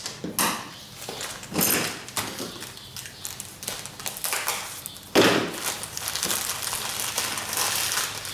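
Rustling, scraping and light clattering as plastic tubing and a foil kit pouch are handled on a wooden table, with a louder thud about five seconds in and crinkling after it.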